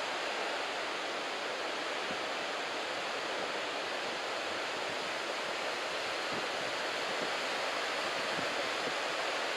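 Head-high typhoon-swell surf breaking along a beach: a steady, continuous wash of noise with no single wave standing out.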